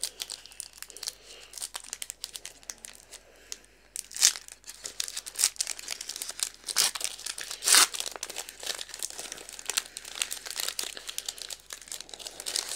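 Foil trading-card booster pack wrapper being torn open and crumpled in the hands: dense crinkling, with a few louder crackles about four, seven and eight seconds in.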